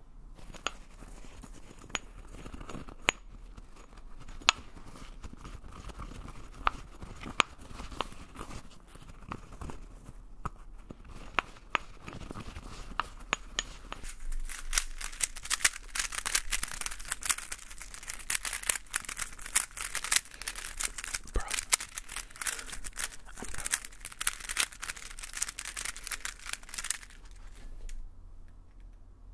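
Close-miked handling sounds: scattered sharp clicks that build into a dense, crackling run of clicks and crinkles in the second half, then ease off near the end.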